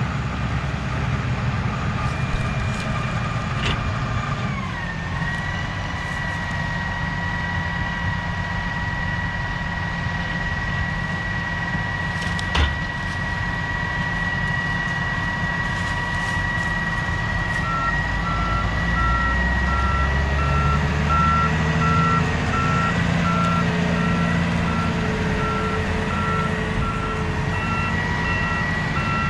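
Heavy harvest machinery running, with a low engine rumble and a steady high whine that drops in pitch about four to five seconds in and then holds. A little past halfway, a reverse-warning beeper starts up and keeps beeping steadily.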